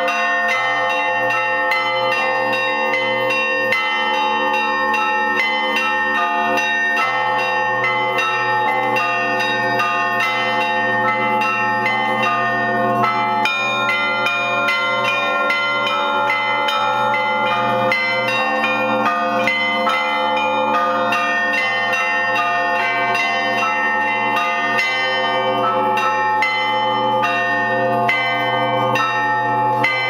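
Russian Orthodox church bells rung by hand from the belfry, the ringer pulling ropes tied to the clappers. Smaller bells are struck in a fast, continuous pattern over the steady hum of the larger bells.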